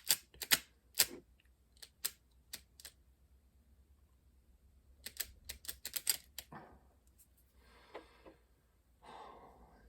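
Quick series of sharp, light clicks and taps from handling a floppy drive mechanism, in two clusters, followed by softer rustling.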